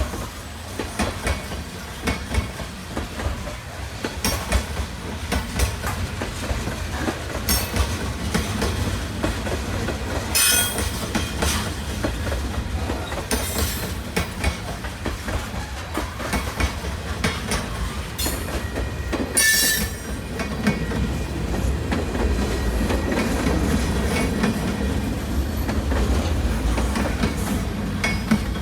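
Train rolling past at close range: a low rumble and the clickety-clack of wheels over rail joints, with a few brief high-pitched wheel squeals about a third and two-thirds of the way through.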